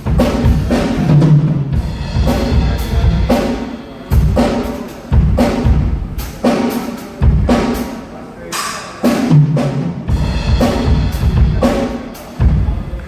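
Drum kit played continuously: bass drum, snare and cymbal hits in a steady groove, with a few pitched low tom strikes among them.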